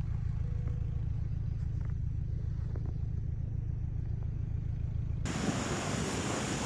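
A low, steady rumble, then about five seconds in an abrupt cut to a steady rushing hiss.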